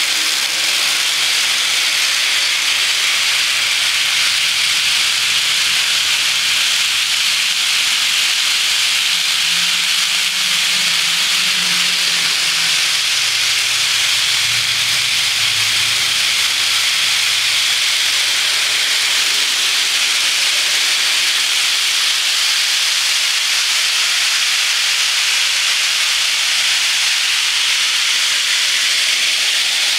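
HO scale freight train running fast on a spiral of track: the wheels of many cars rolling on the rails make a steady, loud hiss.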